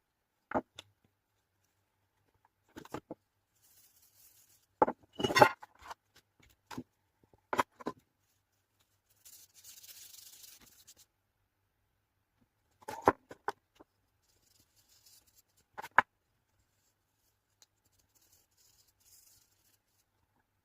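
Scattered sharp clicks and knocks of small objects being handled and set down on a work surface, with a soft scraping for about two seconds near the middle.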